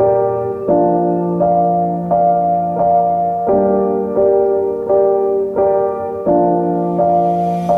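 Background music: piano or electric keyboard playing sustained chords that change about every 0.7 seconds in a steady rhythm.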